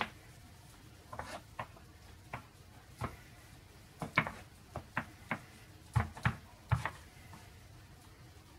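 Short taps and clicks, some with a light thump, as a wooden-handled tool works the thick top of raw cold-process soap in a wooden mold. They come most densely between about four and seven seconds in, then stop.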